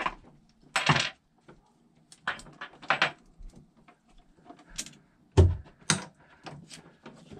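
Metal cable lugs and heavy battery cables clinking and rustling as they are handled and fitted onto battery terminal studs: a series of sharp, irregular clicks with one heavier knock about five and a half seconds in.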